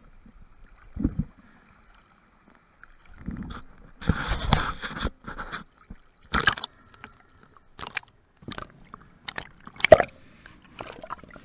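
Sea water splashing and gurgling around a diver's waterproof camera housing as he swims at the surface and then goes under. The splashes and knocks are irregular, and the loudest comes about ten seconds in.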